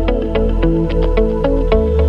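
Background music: an electronic track of quick, short, pitched notes over held bass notes.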